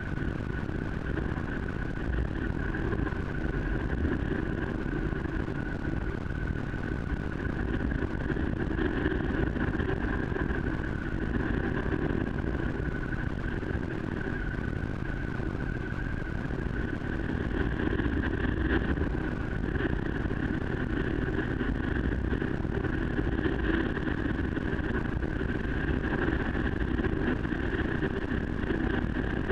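Steady vehicle running noise while riding down a wet gravel road: a constant low rumble with a steady whine above it.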